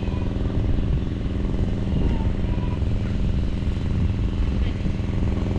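Generator engine running steadily at an even speed, with no change in pitch or level.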